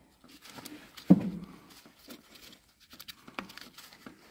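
Handling noises as a rubber timing belt is worked over a camshaft pulley on a Subaru 1.8 engine by gloved hands: scattered light clicks and rubbing, with one louder knock about a second in.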